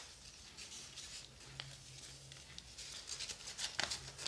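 Faint handling noise: scattered small clicks and rustles, with a few sharper ticks near the end.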